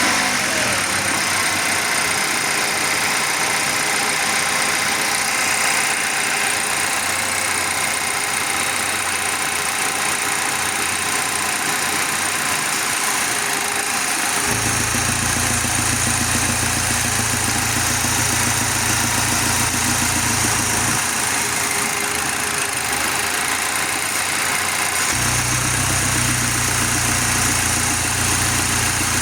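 Audi 2.0 TFSI turbocharged four-cylinder engine idling steadily, with a deeper low drone that comes in about halfway through, stops, and comes back near the end.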